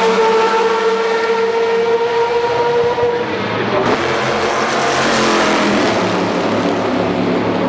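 Race cars at full throttle passing along the main straight. A steady high engine note holds for the first three seconds, then a second, louder car comes through about four seconds in.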